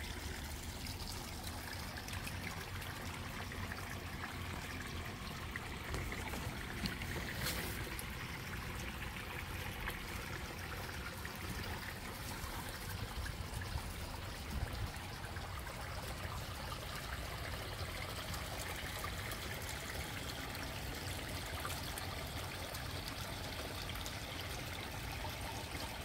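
Water trickling steadily over stones into a small garden pond.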